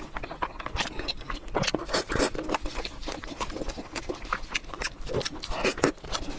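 Close-miked eating sounds: quick, irregular wet clicks and smacks of chewing and mouth noises, with a few short breathy smears.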